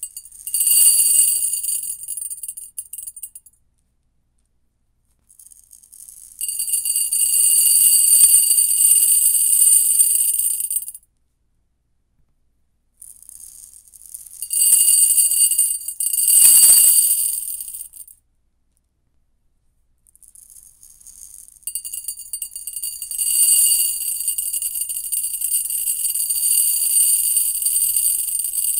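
Uncooked rice grains dropped in a stream into a ceramic bowl: a dense rattling patter of grains on the bowl with a steady high ringing from the ceramic. It comes in four pours with silent pauses between them, the third swelling twice.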